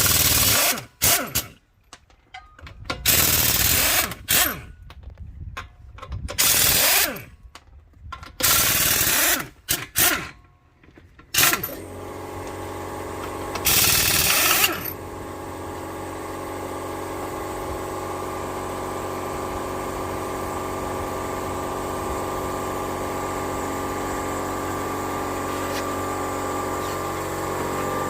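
Impact wrench running in short bursts of about a second each, spinning the lug nuts off a 2002 Toyota Tarago's front wheel. After about twelve seconds a motor starts and keeps running with a steady hum, slowly getting louder, broken by one more wrench burst soon after it starts.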